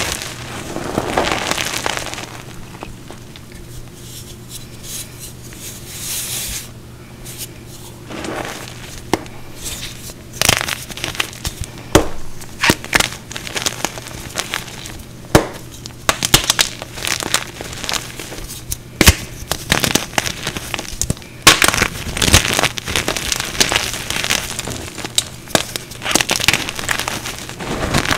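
Hands crushing and crumbling cleaner-soaked chalk chunks coated in green powder: a steady gritty crunching with many sharp cracks and crackles, sparse for the first several seconds and coming thick and fast from about ten seconds in.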